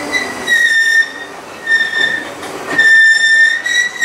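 Freight train of empty flatcars rolling past, its steel wheels squealing in a high-pitched tone that breaks off and returns several times over the rumble of the cars.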